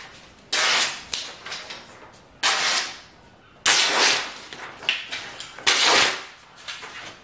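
A sharp kitchen knife slicing down through a hand-held sheet of paper four times. Each cut is a short, crisp rasp that starts suddenly. The blade goes through cleanly, a sign of a very sharp edge.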